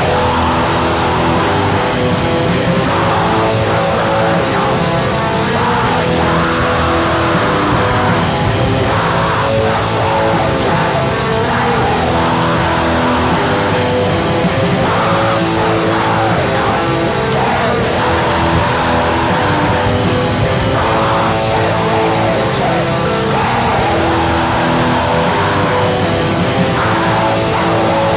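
Black metal music played on distorted electric guitars, loud and unbroken throughout.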